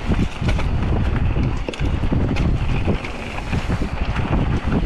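Wind buffeting the microphone of a mountain bike riding fast down a dry, leaf-covered dirt trail, with the tires rolling over dirt and leaves. Scattered clicks and knocks from the bike run through it.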